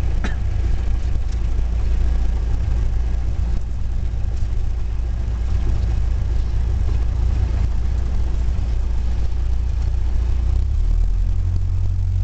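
Cessna 172's piston engine and propeller running at low taxi power, a steady low drone heard inside the cabin. The engine note shifts near the end.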